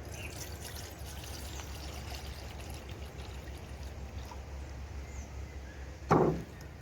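Water trickling steadily, with a brief louder sound about six seconds in.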